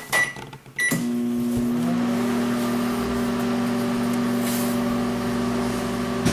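Microwave oven keypad beeping, then the oven starting about a second in and running with a steady hum, a faint rising whine settling as it gets up to speed. A short click near the end.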